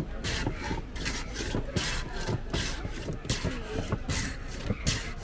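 Block of ice shoved back and forth across the blade of a wooden hand ice shaver, shaving ice with a rasping scrape about twice a second.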